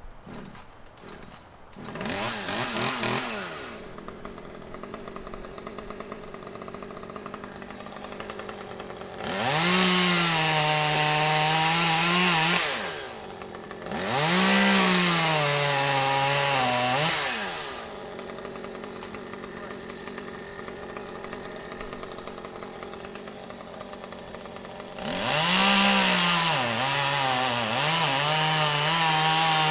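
Two-stroke chainsaw revving and cutting dead oak in three long bursts, with a short rev early on. It drops back to idle in between. In each cut the engine pitch jumps up, then sags and holds lower as the chain bites into the wood.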